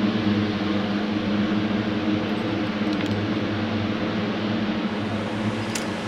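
Steady machine hum, like a shop fan running, with a couple of faint light clicks, one about three seconds in and one near the end.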